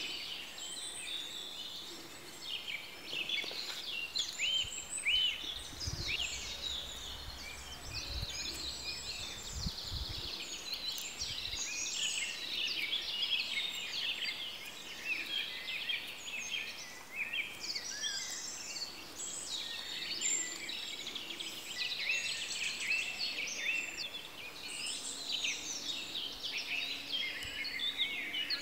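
Dense chorus of songbirds: many overlapping high chirps and trills from several birds at once, with a few faint low thumps around the middle.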